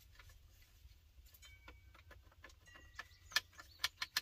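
Light clicks and taps from handling dash cluster parts, with a few sharper clicks in the last second and a half and a couple of faint brief squeaks, over a low steady hum.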